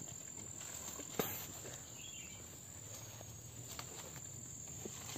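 Insects chirring in a steady high drone, with a sharp knock about a second in and a few faint taps.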